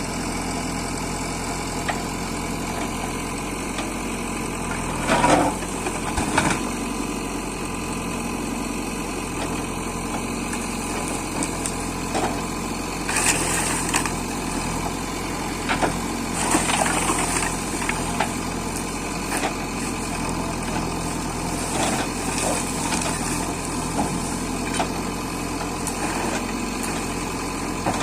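JCB 3DX backhoe loader's diesel engine running steadily, with short clanks and clatters now and then, about six times.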